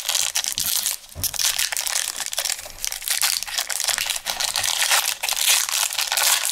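Foil wrapper of a 2019 Panini Playoff football card pack crinkling and tearing as it is ripped open by hand: a dense crackle with a short lull about a second in.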